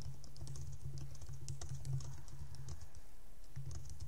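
Computer keyboard typing: a quick, irregular run of key clicks over a low, uneven hum.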